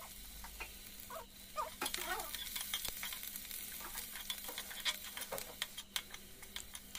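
Chopped onion, bay leaves and cumin seeds sizzling in hot mustard oil in a metal kadai. From about two seconds in, a metal spoon scrapes and clicks against the pan as the onion is stirred so it fries until red.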